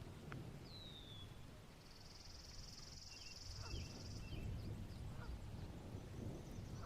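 Faint outdoor ambience of bird calls: a short falling whistle about half a second in, a high buzzy trill from about two to four seconds in, and a few short calls, over a steady low rumble.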